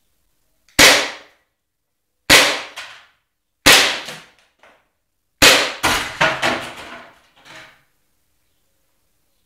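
A Beretta M9 gas blowback airsoft pistol firing four single shots about one and a half seconds apart, each a sharp crack. After the fourth, a quick run of smaller clinks and clatters over about two seconds as the glass bottle target shatters and its pieces fall.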